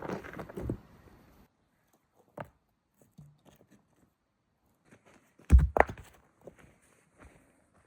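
Rocks and dirt being shifted by hand at a fire pit: crunching and scraping at first, a single knock, then a heavy thud with a couple of knocks about five and a half seconds in.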